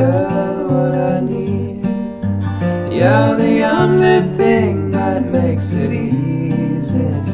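Background song with strummed acoustic guitar and a bass line; a melody swells and falls in the middle.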